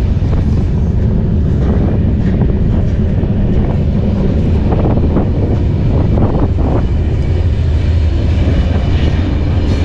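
Mauritania's iron ore freight train rolling along, heard from one of its open ore wagons: a loud, steady low rumble with irregular knocking and rattling of the wagons.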